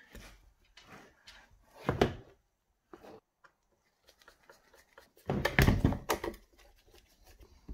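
Handling knocks from the plastic electric chainsaw and tools on a metal workbench: a single knock about two seconds in, and a louder cluster of thumps and clunks about five seconds in.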